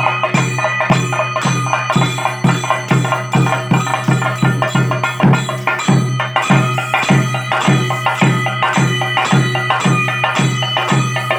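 Chenda drum played with sticks in a steady, driving beat of about two to three strokes a second, with held tones sounding over the beat throughout: traditional Kerala Theyyam accompaniment.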